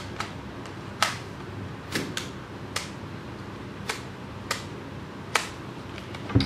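Irregular sharp plastic clicks and taps, about eight of them, from hands working a Fujifilm Instax Mini 9 instant camera. The loudest comes near the end, a click with a dull thump.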